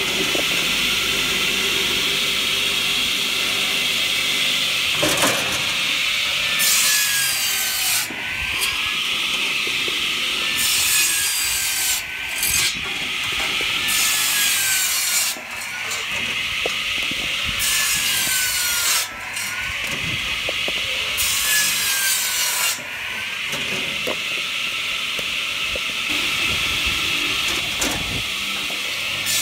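Hartnett 500mm electric log saw bench, its circular blade cross-cutting logs into firewood blocks one after another, about one cut every three to four seconds. The blade's whine drops in pitch as it bites into each log and rises again as the cut finishes, over a rasp of sawing, with a short knock between cuts.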